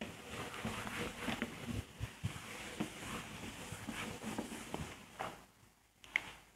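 Faint, irregular scratching and tapping of writing strokes for about five seconds, then a pause with one sharp tick.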